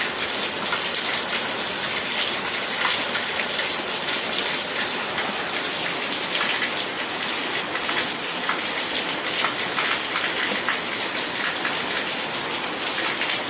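Steady rain falling: a constant hiss with many small drop ticks scattered through it.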